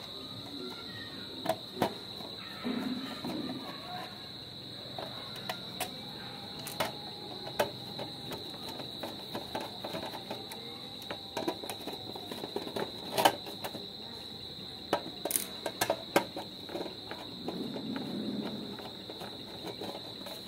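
Screwdriver clicking and scraping on the cover screws and sheet-metal case of a computer power supply (SMPS) as the screws are worked loose, in many short irregular clicks. A steady high-pitched tone runs underneath throughout.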